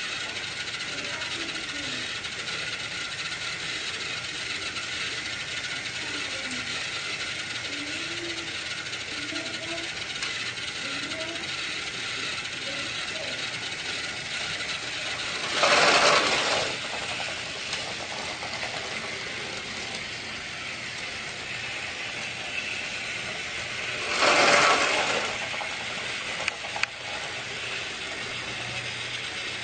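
Battery-powered toy train running with a steady whir of its motor and gears. Two loud bursts of noise, each about a second long, come about halfway through and again some eight seconds later, followed by a few sharp clicks.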